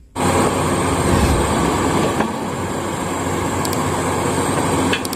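Komatsu hydraulic excavator running steadily as it digs: a dense, even engine rumble that starts abruptly.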